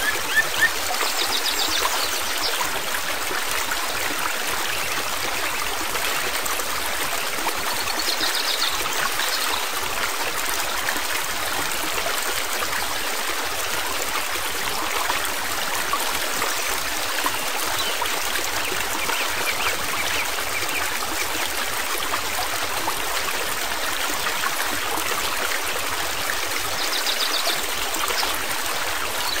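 Steady rush of running stream water, even and unbroken.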